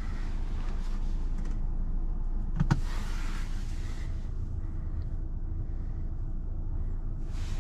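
Cabin noise inside a running BMW 530i Touring: a steady low rumble, with stretches of hiss and a single sharp click a little under three seconds in.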